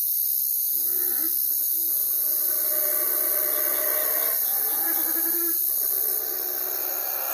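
Owl hooting: short low hoots a few seconds apart, under a steady loud hiss.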